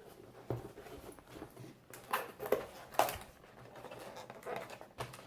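Packaging being handled and opened by hand: scattered rustles and light clicks of plastic and cardboard, with a few louder ones about two to three seconds in.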